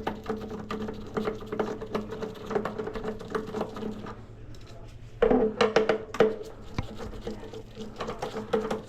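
Irregular clicks, taps and knocks of hands and tools working on a power wheelchair's battery compartment, growing louder and busier about five seconds in, over a steady low hum.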